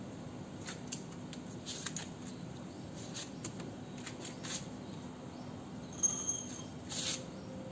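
Scattered light clicks and clinks of small metal parts being handled, with one short, brighter metallic ring about six seconds in, over a low steady hum.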